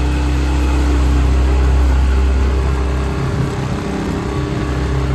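A skiff's outboard motor running under way, a loud steady engine drone with wind and water noise. About three seconds in, the deep steady hum breaks up and the engine note becomes rougher.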